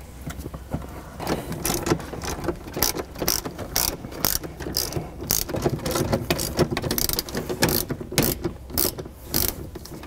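Hand ratchet with an 8 mm socket clicking in repeated runs of quick, sharp ratchet clicks as it backs out the small screws holding the lower shifter boot.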